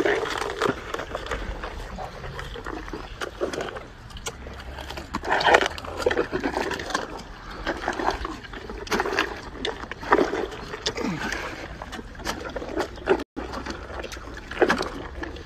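Hippopotamus crunching and chewing fruit, with irregular wet crunches and mouth sounds.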